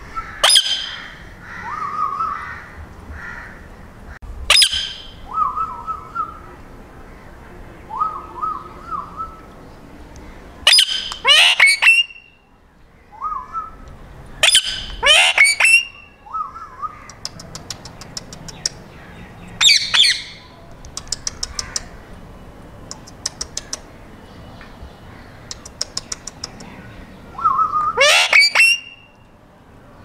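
Indian ringneck parakeets squawking: about six loud, sharp calls that drop in pitch, some in quick clusters, with softer chattering between them. Runs of quick clicks come in the later part.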